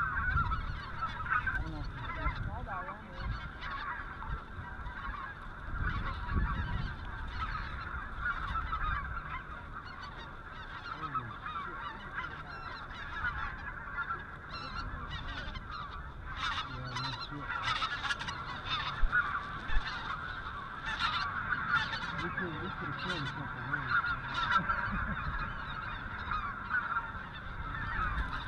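A dense chorus of snow geese calling, many birds honking and yelping over one another without a break, with sharper, louder calls standing out in the second half.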